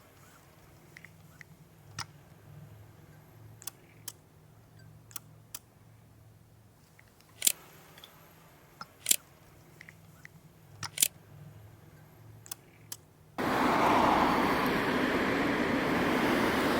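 Scattered single camera shutter clicks, about a dozen at irregular intervals, over a quiet low hum. About thirteen seconds in, this gives way abruptly to a loud, steady rush of sea surf.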